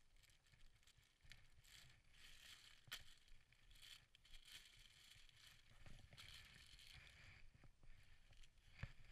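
Faint crinkling and rustling of a clear plastic bag as camera flash units are handled and lifted out of it, with one sharp click about three seconds in.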